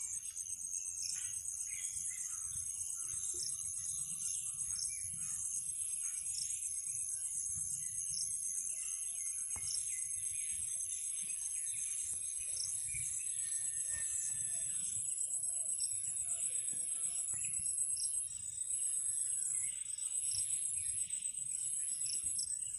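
Insects trilling steadily at a high pitch, with scattered bird calls underneath.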